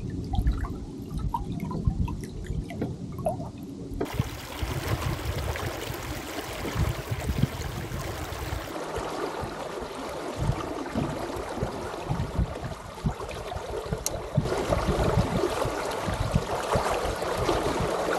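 Lake water gurgling and splashing along the hull and floats of a small sailing trimaran under way, with low wind rumble on the microphone. The sound shifts abruptly a few times and is louder near the end.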